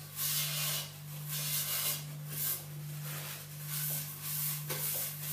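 Paper towel wiping the inside of an air fryer and its basket: a series of short scratchy rubbing strokes, roughly one every half second to a second, over a steady low hum.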